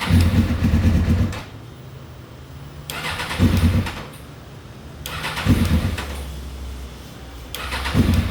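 A 2000 Suzuki GSX-R600's inline-four is started four times; each time it runs for about a second, then dies back to a low hum. This is the start-then-shut-off fault, which turns out to come from water in the fuel tank.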